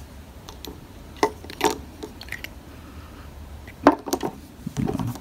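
A few sharp knocks and clicks of bottles and containers being handled and set down on a hard surface, the loudest about four seconds in.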